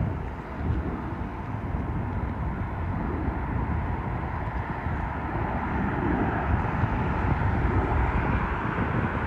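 Jet airliner on final approach, its engines a steady rush with deep rumble that grows gradually louder.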